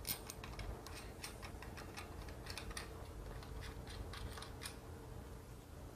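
Faint, irregular small metallic clicks and ticks of nuts being threaded by hand onto the mounting bolts of an air conditioning compressor on a motor accessory plate.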